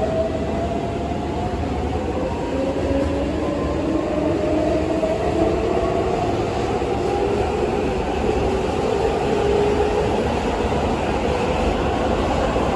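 Keihan 7200 series train's Toyo Denki GTO-thyristor VVVF inverter and traction motors, heard inside the car, whining in several tones that climb steadily in pitch as the train accelerates, over a steady rumble of the wheels on the rails.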